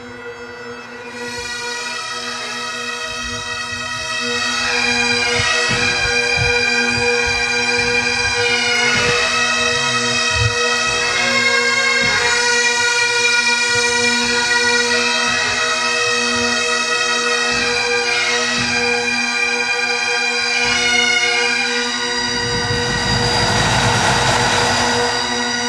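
Bagpipes playing a tune over a steady drone, growing louder over the first few seconds. A rushing noise swells under the pipes near the end.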